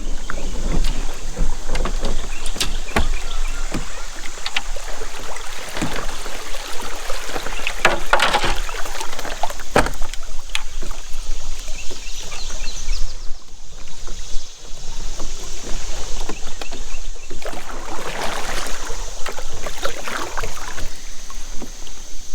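Sounds of a kayak being handled on the water: irregular knocks and scrapes against the hull, with rustling and water noise.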